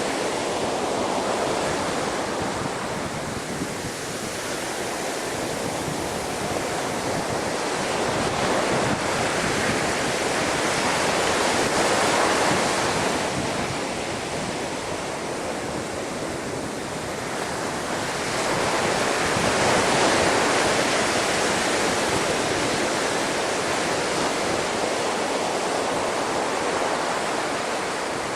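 Storm waves breaking and washing in a continuous rush of surf, swelling and easing in slow surges: loudest a little before the middle and again about two-thirds through. Wind runs underneath.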